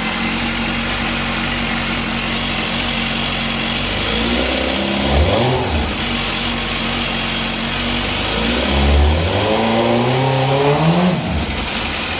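2004 Suzuki GSX-R1000 inline-four motorcycle engine idling and revved twice, a short blip about four seconds in and a longer rev around nine seconds, each falling back to idle. The engine is not yet warm and sounds regular, without the rattle that the owner says comes once it warms up.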